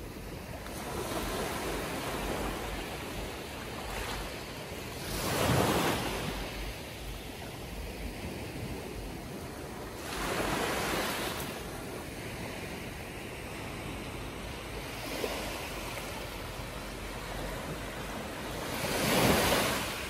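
Small waves breaking and washing up a sandy beach, each wash swelling and fading, with the louder ones arriving about five seconds, ten seconds and, loudest, near the end.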